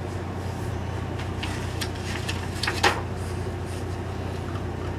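Steady low hum with a few soft rustles and clicks of a picture book's page being handled and turned, the most distinct a little before three seconds in.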